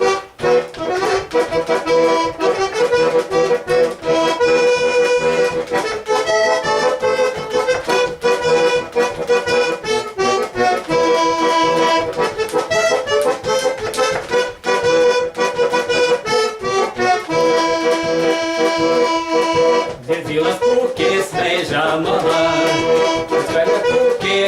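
Garmon (button accordion) playing a folk-song tune with chord accompaniment, without singing.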